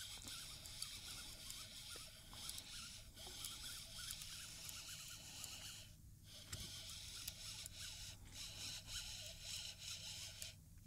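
Faint small scrapes and light knocks on a fishing kayak while a hooked fish is being fought, over a low steady hiss.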